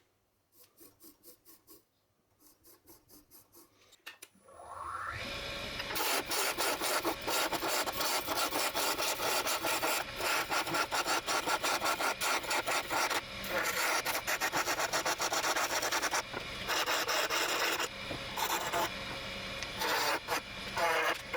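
A wood lathe spinning up with a rising whine about four and a half seconds in, then a tool or abrasive worked against the turning wood in a dense, continuous scraping. Before the spin-up there are only faint, regular pulses.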